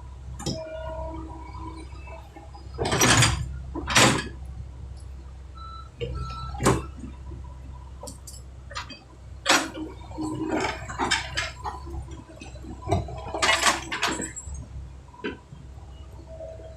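Backhoe diesel engine running steadily under a series of loud, sudden clanks and scrapes, with the heaviest groups about three and four seconds in and again near the end.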